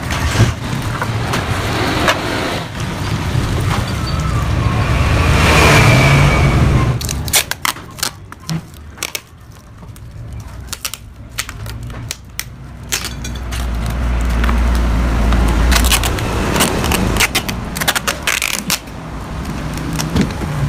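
Yamaha RX-King two-stroke single revved through its freshly re-stuffed exhaust, which the uploader calls crisp and snarling. The revs build to a peak about six seconds in and fall back to a crackling, popping idle, then climb again and drop once more near the end.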